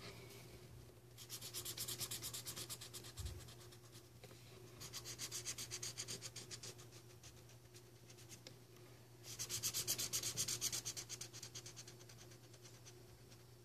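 Coloring on paper with the gray, in three bouts of rapid back-and-forth scribbling strokes, each lasting two to three seconds with short pauses between, the last bout the loudest.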